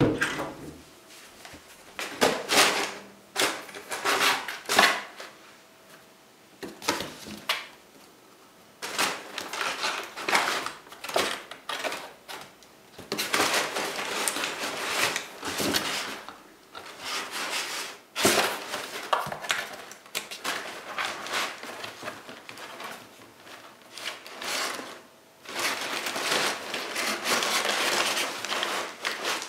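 Cats rustling and scratching in a cardboard box of crumpled packing paper: irregular bursts of paper crinkling and cardboard scraping, some much louder than others.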